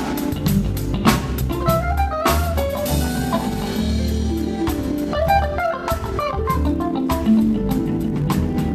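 A band playing an instrumental passage: a guitar plays a moving melodic line over sustained bass notes and a drum kit with cymbal strokes.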